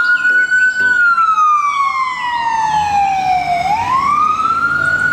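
Ambulance siren wailing: the pitch rises, falls slowly for nearly three seconds, then rises again near the end.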